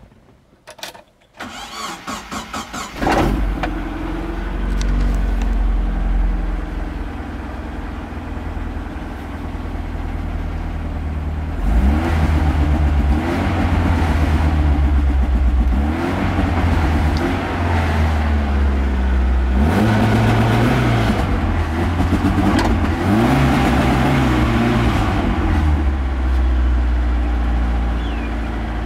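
A ute's spark-ignition petrol engine is cranked by the starter and catches about three seconds in, then runs at idle. From about twelve seconds in it is revved again and again in short rises that break off and fall back, with the push-button spark cut triggered, so the DIY timer circuit cuts the ignition.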